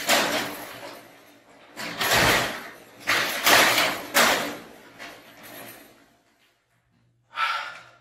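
Sectional garage door being pushed up by hand, its panels rattling and banging in the tracks in a series of loud surges over the first five seconds, then dying away. The sections are being shifted so the door seats properly at the bottom after being put back on its track.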